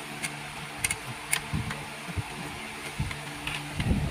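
Irregular metal clicks and taps as pliers grip and work the toothed metal ring on top of a spa air blower, over a steady low hum.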